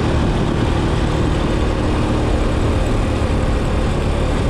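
Motorcycle engine running steadily while riding along a road, with a constant rush of wind over the microphone.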